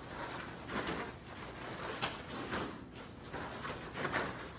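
Running feet thudding and scuffing on foam floor mats as two people sprint back and forth in shuttle runs, irregular footfalls with louder thuds about two and four seconds in.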